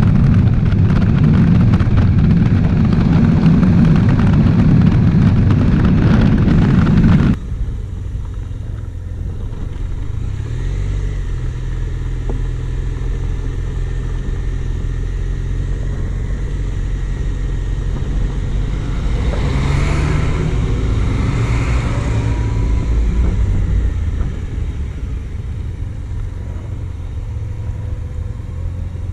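Honda Silver Wing 400 maxi scooter's parallel-twin engine running on the move, recorded onboard: loud wind and road noise covering it at first, then, after a sudden cut about seven seconds in, a quieter passage where the engine's low, steady note comes through plainly. Past the middle an oncoming vehicle passes, its sound rising and falling.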